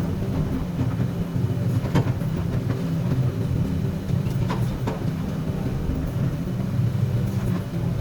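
Komatsu PC200 hydraulic excavator's diesel engine running steadily, with a few sharp knocks, one about two seconds in and another past the middle.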